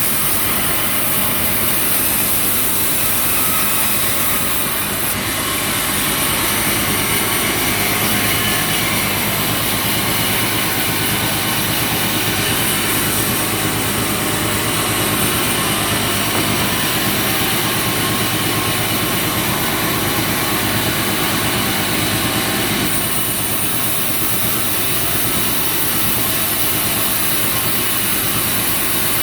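Wood sawmill running steadily: a continuous loud machine noise with a strong high hiss and no breaks.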